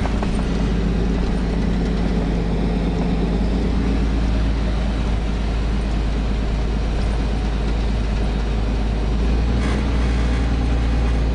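Steady engine and road noise of a motor vehicle, heard from inside the cabin while driving: an even low rumble and hum.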